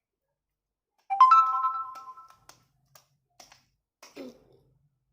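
A loud electronic chime like a phone ringtone: several steady tones sounding together, starting about a second in and fading over about a second. A few faint clicks and a short falling sound follow.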